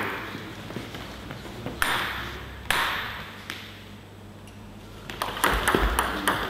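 Table tennis ball knocks: a few single, spaced knocks of the ball, then a quick run of bat hits and table bounces in a rally from about three-quarters of the way in. Each knock echoes briefly in the hall.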